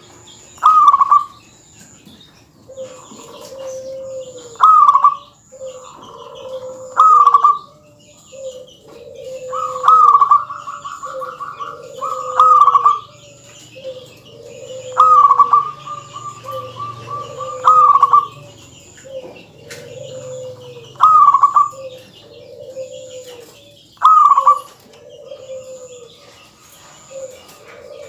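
Zebra dove (perkutut) singing its repeated cooing song: a loud, bright call every two to three seconds, sometimes run into a rapid trill, over a string of lower cooing notes. A faint high tick repeats steadily behind it.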